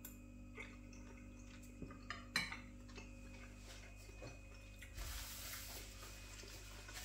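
A few light clicks of a metal fork against a dish, the loudest about two and a half seconds in, then a faint soft rustle near the end.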